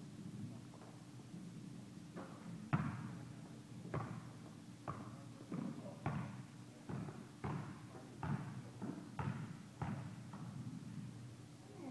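Basketball being dribbled on a gym court floor: irregular bouncing thuds about once a second, sometimes two in quick succession, each ringing briefly in the hall.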